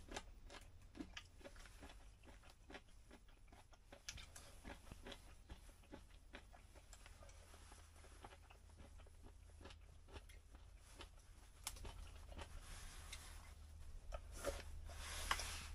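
A person eating with chopsticks from a metal lunch box: faint chewing and many small clicks of chopsticks against the tin, with louder mouthfuls near the end.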